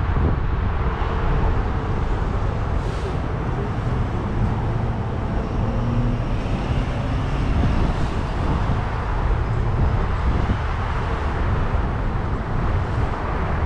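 Car driving in city traffic: a steady low rumble of road and wind noise.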